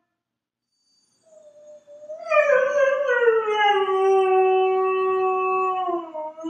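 A husky howling. After a second of silence a soft note starts, then one long howl rises briefly, slides down to a steady pitch and holds it, dropping away near the end.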